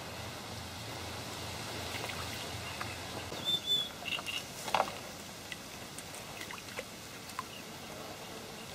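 Steady outdoor hiss of wind over a reed-fringed pond, with a few short high bird chirps about three and a half seconds in, a short knock just before five seconds, and scattered light clicks after it.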